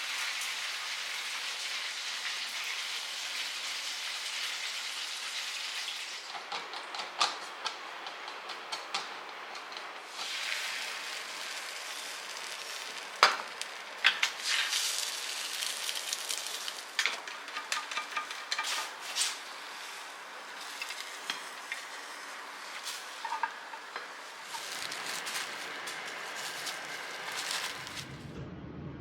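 Rain falling in a steady hiss, then, from about six seconds in, an irregular patter of sharp drips and taps over the hiss; it cuts off near the end.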